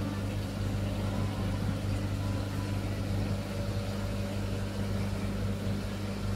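Steady low hum with an even hiss over it, from the pumps and filtration of the shop's coral tanks running.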